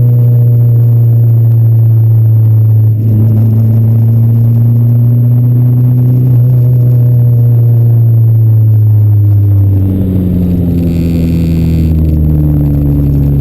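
Honda Civic engine and exhaust running loud under load, its note rising slowly and steadily. About ten seconds in, the note changes to a higher one that then falls away gently.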